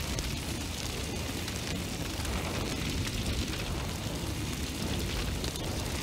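Flames roaring steadily with a fine crackle over a deep rumble.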